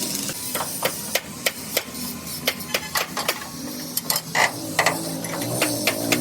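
Hammer blows on steel, quick irregular strikes of metal on metal, a few of them ringing briefly.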